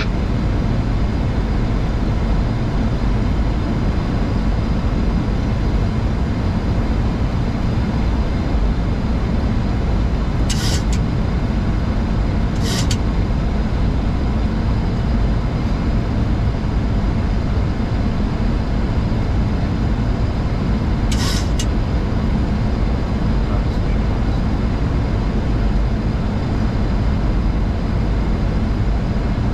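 Steady cabin noise inside a Boeing 737-800 cockpit on approach: engine and airflow noise, heaviest in the low end. Three brief hissy clicks stand out, at about ten and a half, twelve and a half, and twenty-one seconds in.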